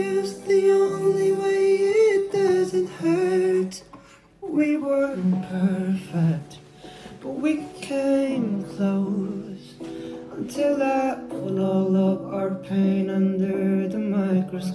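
Slow pop ballad: a voice singing a held, bending melody over guitar, with a brief drop in level about four seconds in.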